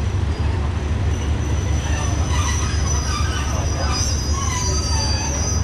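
Train wheels squealing on the rails: a steady high-pitched squeal, joined by wavering squeal tones partway through, over a constant low rumble.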